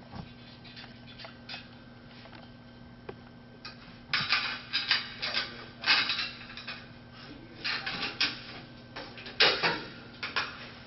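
Clattering and rattling of metal frame tubes and bolt hardware being handled and fastened during assembly, in several short bursts from about four seconds in, over a steady low electrical hum.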